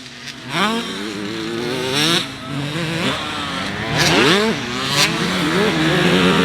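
Motocross bike engines revving up and down as the bikes ride, with repeated rises in pitch through the gears.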